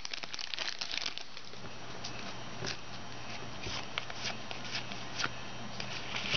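Foil wrapper of a trading-card pack crinkling as it is torn open, then cards sliding and flicking as they are thumbed through by hand. The crackles are dense for about the first second and then come as scattered light ticks.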